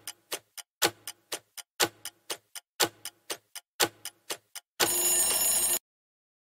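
Countdown-timer sound effect: a clock ticking in a repeating pattern, one loud tick and a few softer ones each second, for five seconds. About five seconds in, a one-second alarm-bell ring signals that time is up, then it cuts off.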